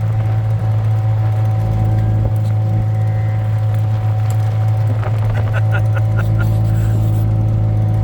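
Side-by-side utility vehicle's engine running steadily with a constant low drone.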